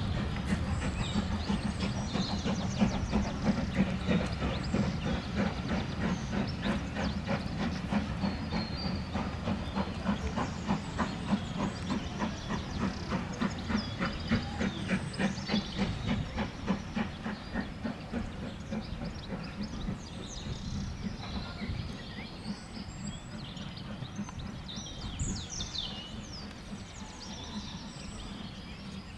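Steam-hauled train of coaches pulling away. A steady rhythmic beat over a low rumble fades as the train draws off into the distance, and birds sing near the end.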